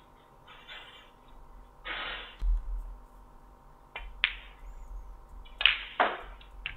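Snooker shot: sharp knocks of the cue tip on the cue ball and balls clicking against each other, several separate knocks in the second half, with a brief burst of noise about two seconds in.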